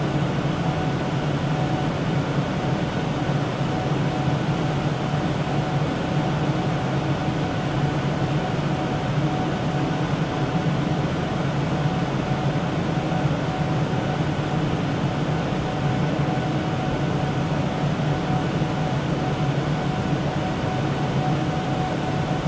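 Steady drone of a server room: racks of servers running with their cooling fans and the room's air conditioning. It is a constant rushing noise with a low hum and a faint, steady higher tone.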